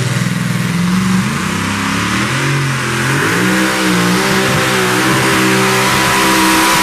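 Supercharged engine of a 2WD pulling truck, running low for the first second or so, then revving up over about two seconds and held at high revs as the truck pulls the weight-transfer sled under full load.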